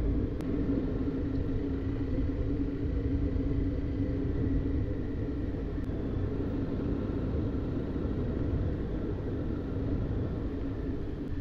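A vehicle driving steadily, its engine holding an even pitch over a continuous low rumble.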